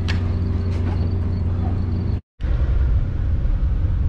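Steady low hum of a Metra commuter train standing at the platform. After a momentary dropout about halfway through, the rougher rumble of the train running, heard from inside the passenger car.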